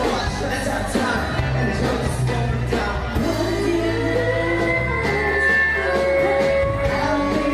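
Live pop-rock band playing loud and steady, with several singers on microphones over drums and electric guitars.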